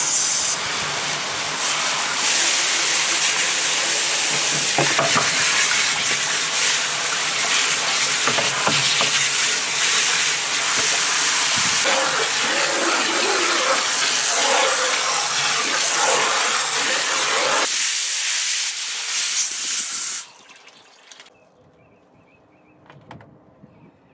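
Water spraying hard from a garden hose nozzle into the empty plastic pool filter tank, a steady loud hiss and splash as the tank is rinsed out, cutting off suddenly about twenty seconds in.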